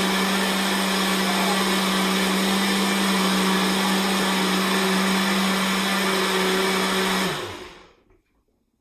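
A Cooks countertop blender running steadily at full speed, blending a thick punch mixture. Near the end it is switched off, and the motor winds down with a falling pitch.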